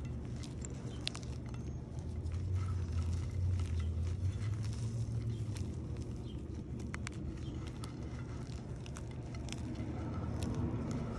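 Dried soapy gym chalk being crushed and crumbled by hand, with soft scattered crunches and crackles as chunks break and crumbs fall onto the pile. A steady low rumble runs underneath.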